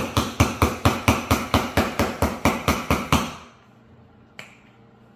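Seasoning canister being shaken hard, its contents knocking against the ends in a quick even rhythm of about five knocks a second that stops about three seconds in. One faint click follows a second later.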